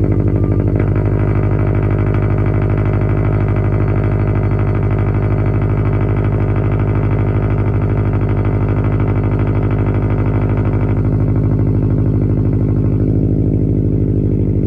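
2018 Subaru WRX STI's turbocharged 2.5-litre flat-four idling steadily on a cold start, heard at the tailpipes through a Tomei Expreme Ti titanium cat-back exhaust with the stock downpipe: an even, deep exhaust rumble.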